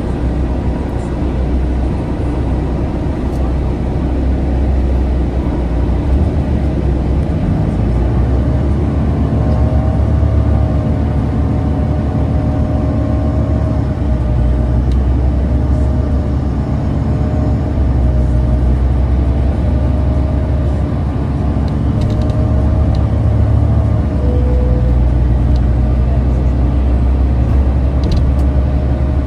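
Interior of a 2011 New Flyer C40LF CNG transit bus under way: the steady low drone of its natural-gas engine and drivetrain, with road noise and a faint whine that wavers in pitch through the middle.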